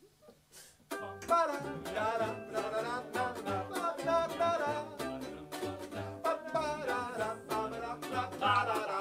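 Ukulele strumming with a cello, the two playing together, starting about a second in after a near-quiet pause.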